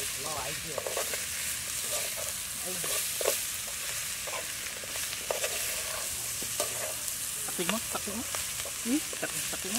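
Chopped eel stir-frying in a metal pot over a charcoal stove: a steady sizzle while it is stirred and tossed, with scattered clicks of the spoon and food against the pot.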